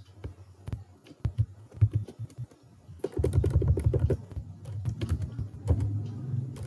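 Typing on a computer keyboard: scattered keystrokes, then a quick run of keys about three seconds in and another burst near the end.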